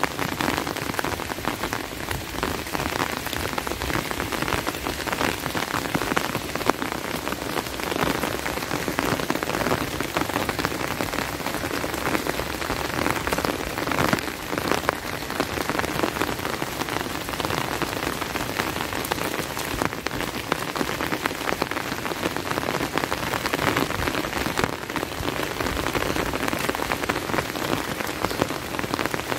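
Steady rain with a dense patter of individual drops.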